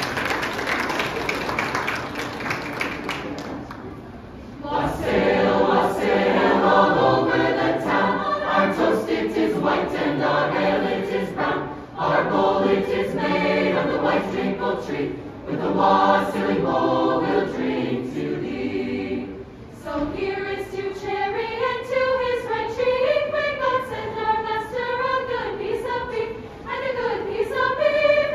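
Mixed high-school choir singing a carol a cappella in parts. The singing starts about five seconds in, after a few seconds of noisy wash. From about two-thirds of the way through, a single voice with vibrato carries the melody over softer choral singing.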